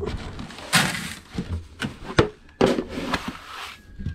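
Chicken feed tossed from a plastic scoop, the grain scattering in two rushes, with a few sharp knocks in between.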